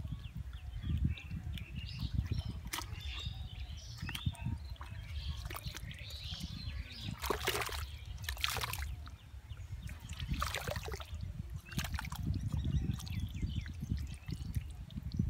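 Hands sloshing and swishing through shallow muddy water, with a few sharper splashes roughly midway.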